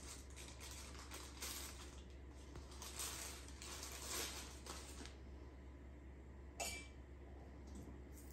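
Glass liquor bottles being handled and uncapped: faint rustling and light clinks, with one sharper click about two-thirds of the way through.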